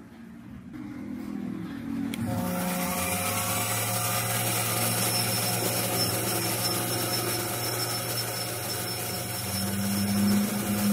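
Mini lathe starting up and then running steadily while boring out the inside of an aluminium displacer piston: a steady motor hum with a high, hissing whine that comes in suddenly about two seconds in, and swells slightly near the end.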